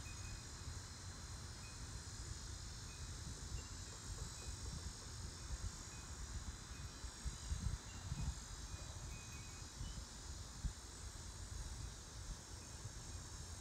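Faint outdoor background: a steady high hiss with low rumbling on the microphone, a few louder low bumps midway, and scattered faint short high chirps.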